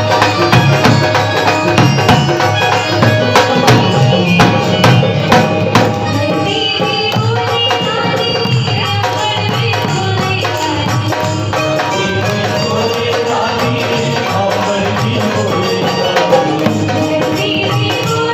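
Instrumental passage of a Hindi devotional bhajan: tabla with melody instruments. The drumming is sharper and louder for about the first six seconds, then settles under a steadier melody.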